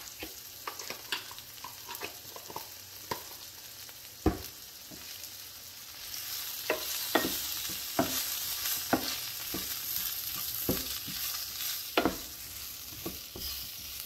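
Wooden spatula stirring and scraping bell peppers, onion and green chillies in a hot, oiled non-stick frying pan, with irregular knocks of the wood against the pan. The food sizzles, and the sizzle grows louder about halfway through as chilli powder and spices are mixed into the vegetables.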